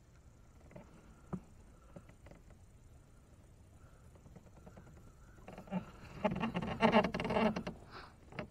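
Fishing reel's drag buzzing in a rapid run of clicks for about two seconds, starting about five and a half seconds in, as a big fish pulls line off. A few faint clicks come before it.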